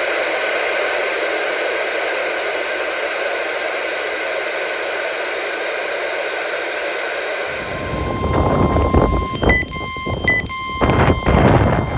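Steady radio static hiss. About two thirds of the way in it gives way to gusty wind rumble on the microphone, over which a steady weather-radio alert tone of about 1 kHz sounds with a few short breaks.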